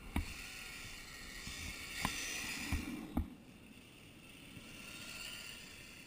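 Radio-controlled car running over packed dirt: a steady hiss of tyres and grit with several sharp knocks as it bumps, mostly in the first half, fading to a fainter hiss.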